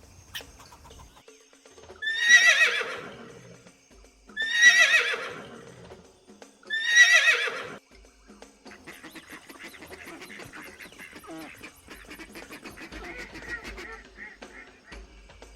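A horse whinnying three times, each whinny a quavering call that falls in pitch, followed by quieter mixed sound.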